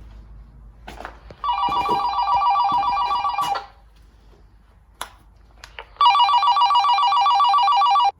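Phone ringtone ringing twice, each ring a warbling electronic trill about two seconds long, with a pause of a little over two seconds between the rings: an incoming call.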